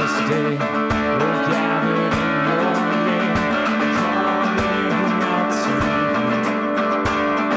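Live worship band music with steady strummed acoustic guitar and violin, and singers at microphones.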